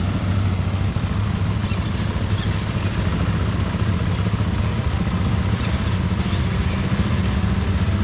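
Dirt bike engines idling steadily, with no revving.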